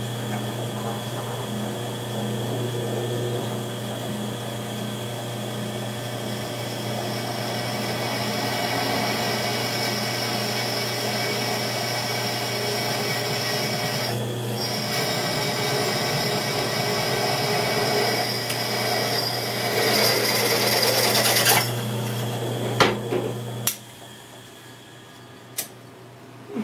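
Drill press running, its 5/16-inch bit cutting into a piece of scrap steel. The cutting grows louder for a moment about twenty seconds in. A few sharp knocks follow, and then the motor cuts off near the end.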